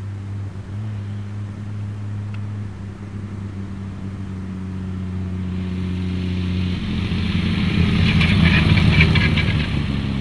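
Vintage open sports car's engine running steadily as the car approaches, growing louder to a peak about eight to nine seconds in as it passes close, with its tyres crunching on gravel, then fading a little.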